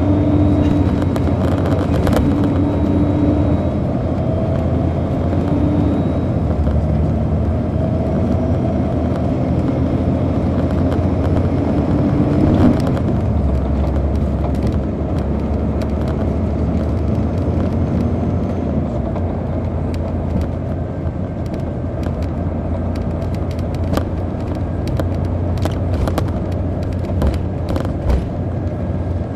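A 2002 MCI D4000 coach's Detroit Diesel Series 60 engine drives the bus, heard from the rear of the passenger cabin as a steady low drone. The engine note sweeps up and back and then settles lower about halfway through. Frequent light clicks and rattles run through the second half.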